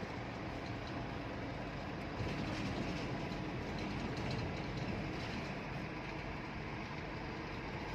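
Steady engine and road noise heard inside a moving vehicle's cabin.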